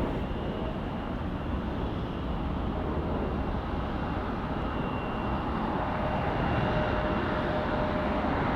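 Jet airliner engine noise at an airport: a steady rushing with a faint high whine, slowly growing a little louder.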